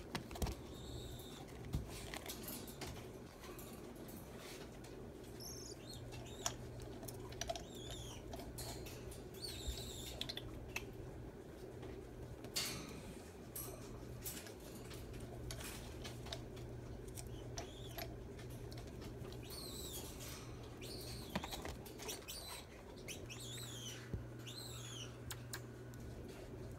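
Common marmosets giving short, high-pitched chirping calls in little groups every few seconds. Scattered clicks and taps come from the monkeys moving over the PVC foraging toy and the wire cage, over a steady low hum.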